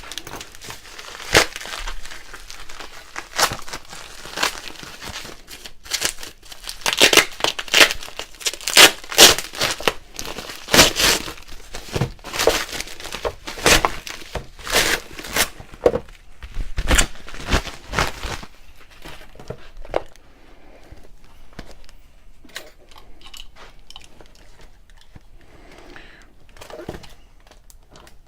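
Sealed packaging around a scope mount being torn open and crinkled by hand: irregular sharp crackles and rips, loudest in the middle, then tapering to softer, scattered rustling near the end.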